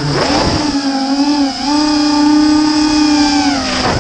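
FPV quadcopter's brushless motors and propellers whining close to the onboard camera as it flies. The pitch swoops down and back up within the first half second, holds fairly steady, then drops a little near the end.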